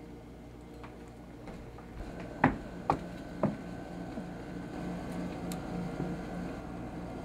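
Three sharp knocks about half a second apart, a couple of seconds in, over a low steady hum that swells slightly afterwards.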